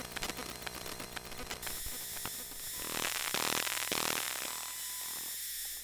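Model locomotive's sound unit giving a steady hiss, with a rapid run of clicks in the first second and a half and the hiss swelling past the middle before easing off.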